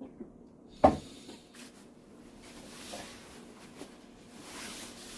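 A single sharp knock about a second in, as a drinking cup is set down on a wooden board, then soft rustling and a breath blown out through puffed cheeks near the end.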